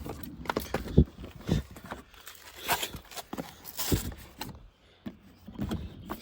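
Handling noise: a handful of sharp knocks, the strongest at the start and about a second in, with short bursts of rustling and scraping in the middle.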